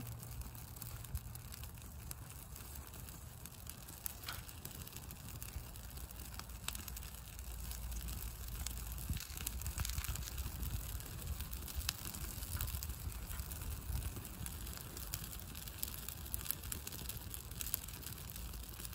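Small kindling fire of birch bark and thin sticks crackling as it catches, with scattered sharp pops and small twig snaps.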